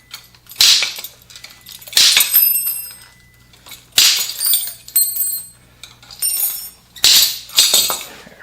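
Steel dirtbike wheel spokes being cut through one after another: about six sharp snaps, each followed by a short high metallic ringing from the freed spoke and rim.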